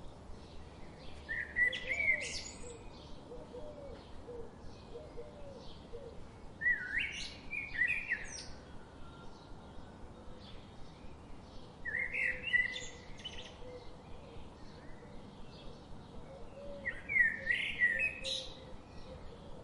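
Wild birdsong: one bird sings a short, loud phrase four times, about every five seconds, over steady faint chirping from other birds.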